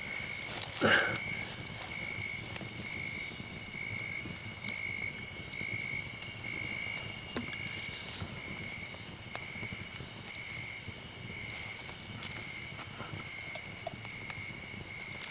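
Night-time jungle insects chirring steadily: one high note pulses evenly, about one to two times a second, over a continuous higher insect hum. A brief louder noise stands out about a second in.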